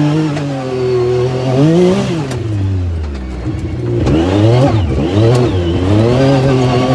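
Yamaha YXZ1000R's three-cylinder engine being revved hard while driving: the pitch climbs to a peak about 2 s in, drops low about a second later, then rises and falls quickly several times before holding steady.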